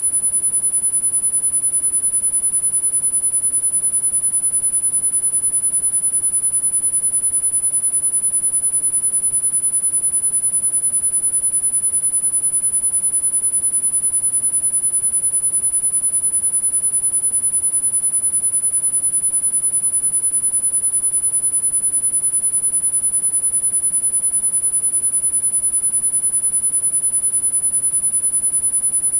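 A single very high-pitched pure sine tone, electronically generated, held steady and unchanging as a tinnitus sound-therapy masking frequency.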